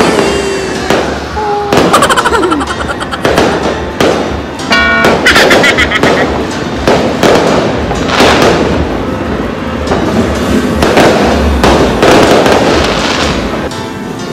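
Fireworks and firecrackers going off in rapid, overlapping succession: many sharp bangs and crackles, with a few brief whistling tones among them.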